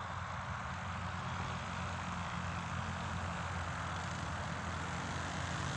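Paramotor trike's engine and propeller running steadily, slowly getting louder as it comes closer.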